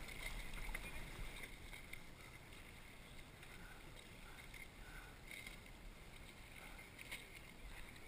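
Choppy salt water lapping and splashing against a kayak's hull close to the microphone, a steady wash with a few sharper splashes.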